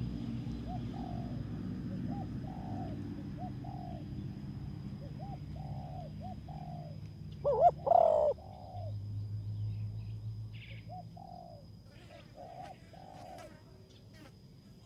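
Spotted doves cooing over and over in short, soft, rising-and-falling notes, with one much louder, closer pair of coos a little past halfway. A low rumble sits under the first half.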